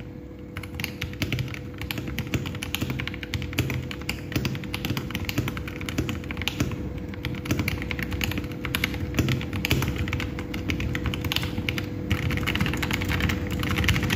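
Fast, continuous typing on a KBD67 Lite mechanical keyboard fitted with Gazzew Boba LT linear switches and JTK keycaps. It is a quiet, compact clatter of keystrokes with no ping or echo.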